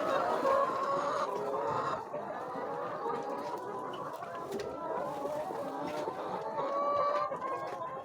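A flock of chickens clucking, many birds calling over one another in a continuous chatter.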